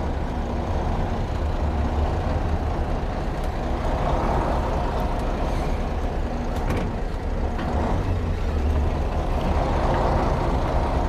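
MAZ truck's diesel engine running in the cab while the truck reverses slowly, its note swelling twice as the driver gives it a little more throttle.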